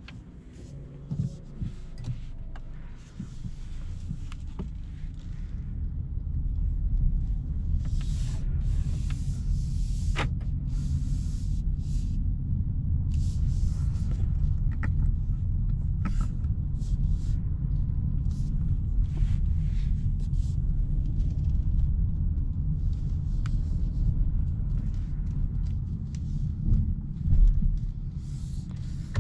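Low in-cabin rumble of a 2022 Kia K8 with its 2.5-litre four-cylinder petrol engine and 8-speed automatic, pulling away and driving in town. The rumble builds over the first six seconds or so and then holds steady, with brief hissing and clicking sounds now and then.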